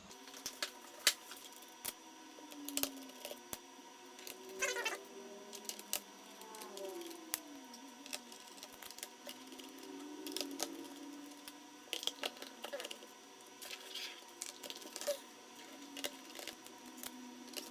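Scattered small clicks and taps of hand tools and screws against a laptop's plastic and metal casing during disassembly, with a few faint squeaks that slide in pitch.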